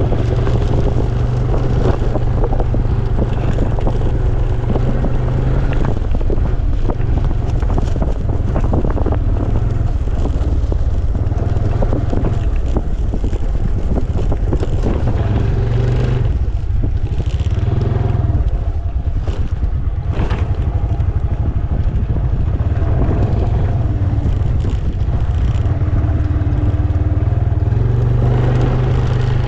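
Small motor scooter's engine running as it is ridden over a rough dirt track, its low drone easing off and picking up again with the throttle, with frequent knocks and rattles from the bumps.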